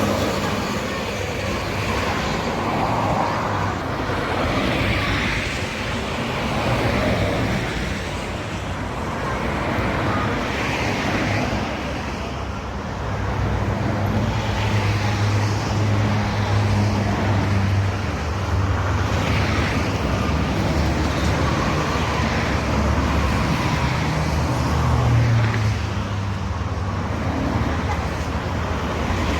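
Steady highway traffic, with vehicles passing at speed and tyre noise. A deep engine hum from a heavy vehicle swells in the middle and again near the end.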